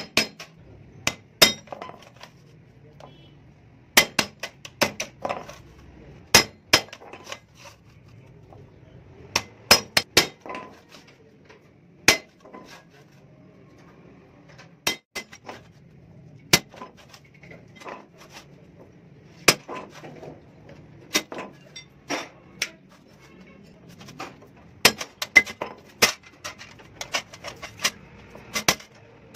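Hand hammer striking a cold chisel held against a steel clutch plate: sharp metallic clinks with a brief ring, in irregular bursts of a few blows and single strikes, as the plate is stripped for relining.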